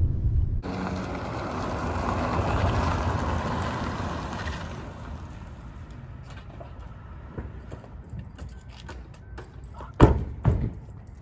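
A car driving in and slowing to a stop, its engine and tyre noise building and then fading out over the first few seconds. About ten seconds in come two loud car-door thumps about half a second apart.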